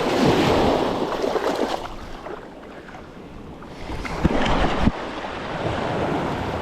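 Ocean surf washing in, with wind on the microphone: louder at first, easing off for a couple of seconds, then building again. A couple of brief thumps come about four to five seconds in.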